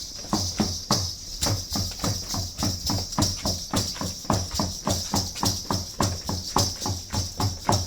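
Concheros dance music: a deep drum beating a steady, even rhythm of about three strikes a second over a constant shaking of rattles.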